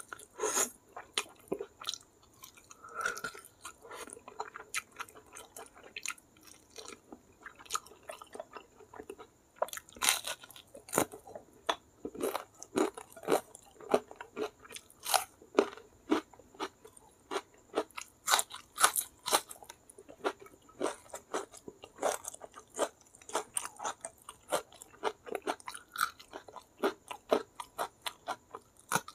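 Close-miked mouth sounds of a person eating spicy mutton curry and rice by hand: steady wet chewing broken by many loud, crisp crunches of raw red onion and green chili.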